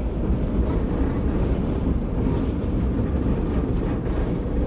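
Ride noise inside a KTM-5M3 (71-605) tram under way: a steady low rumble from its running gear on the rails.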